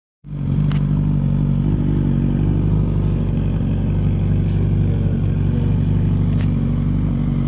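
Suzuki GSX-R 1000 K6 inline-four engine idling steadily.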